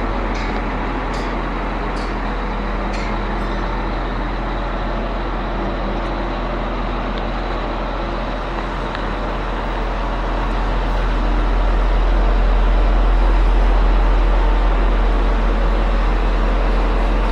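Concrete pump truck running steadily with a deep rumble, a few sharp clicks in the first three seconds, growing louder from about ten seconds in.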